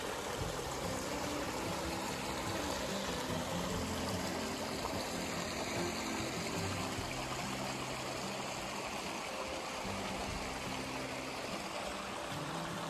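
Small, shallow stream trickling and splashing over rocks in a steady rush.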